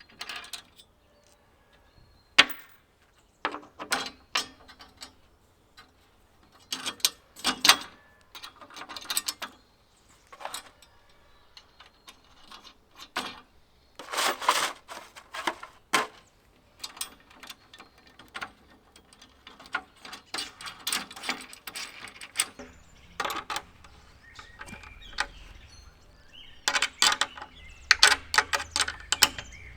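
Irregular clusters of clicks, clatters and short rasping sounds from screws being driven into a wooden backplate and hand tools being handled.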